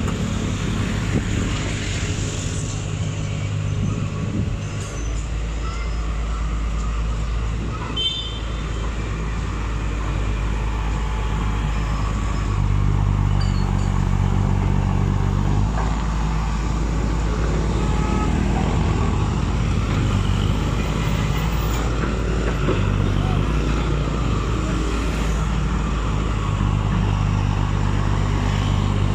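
Hitachi UH07-7 hydraulic excavator's diesel engine running close by, its note stepping up and down as the boom and bucket work. A single sharp knock about eight seconds in.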